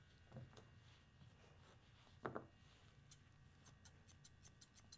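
Dog-grooming shears snipping the hair around a small dog's foot: faint, sharp clicks, a few scattered at first, then a quick run of snips at about five a second starting about three seconds in.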